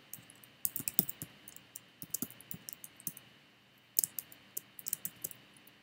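Typing on a computer keyboard: quick runs of sharp key clicks in three bursts with short pauses between.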